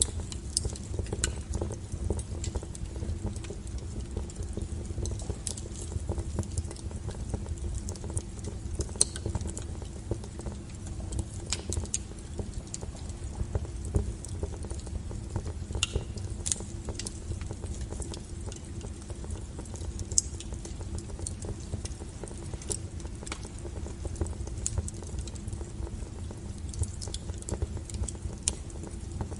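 Wood fire burning: a steady low rumble of flames with frequent irregular crackles and a few louder pops from the firewood.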